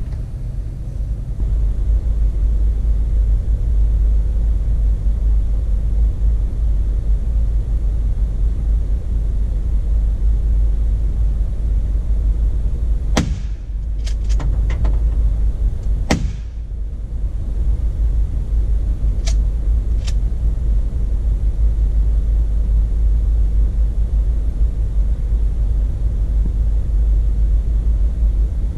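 Jeep Wrangler driving on a rough forest dirt road, heard from inside the cab as a steady low rumble. A few sharp knocks and rattles come about halfway through.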